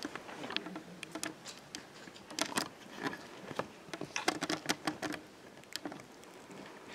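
Handling noise from a handheld microphone being carried: scattered light clicks and rustles at irregular moments.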